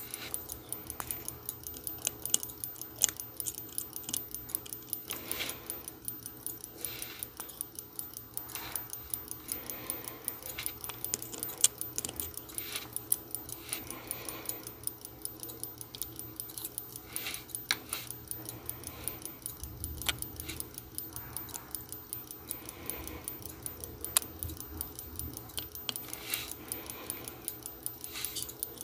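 Close-up ticking of a running mechanical watch movement, the Sicura BFG 158 jump-hour calibre, with occasional sharper clicks of steel tweezers against its metal parts. A steady hum from a clothes dryer runs underneath.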